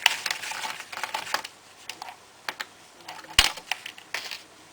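Small clicks and taps of a screwdriver working screws out of a Toshiba A300 laptop's top cover, with one sharper click about three and a half seconds in.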